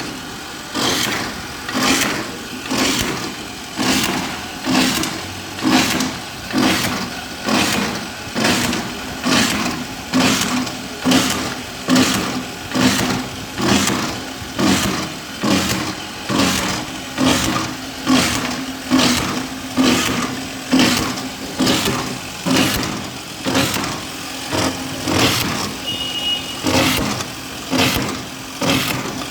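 Hydraulic drilling machine running steadily, with a sharp noisy burst roughly once a second.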